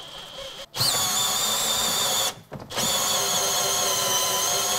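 Cordless drill running on low speed, driving the cutter of an EasyFit isolator into a live water pipe: a steady whine. It starts under a second in, stops briefly about halfway, then runs on.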